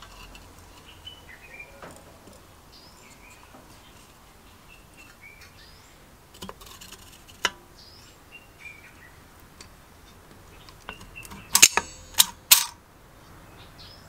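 Recoil starter spring being worked into the Robin EC10's starter housing with locking pliers: scattered light metal clicks, then a quick cluster of sharp, loud metallic clicks a little under two seconds before the end. Faint birdsong chirps throughout.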